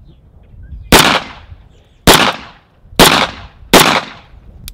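Four pistol shots, a little under a second apart, each with a short echo trailing off.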